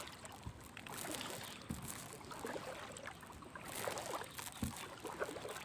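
Double-bladed paddle stroking through calm water beside a small canoe: faint splashes and drips from the blades, with a swell of water noise about a second in and again near four seconds.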